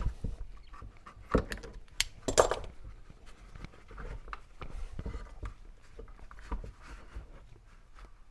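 Scattered clicks and knocks, the loudest a couple of seconds in, from hands pulling a rubber coolant hose off a plastic diesel coolant-heater body and setting hose-clamp pliers down on a workbench.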